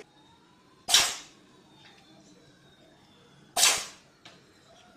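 A cat sneezing twice, two short sharp sneezes about three seconds apart.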